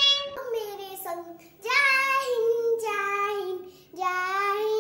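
A young girl singing in long held notes that glide slowly down. After a short break about four seconds in, a young boy's singing voice follows.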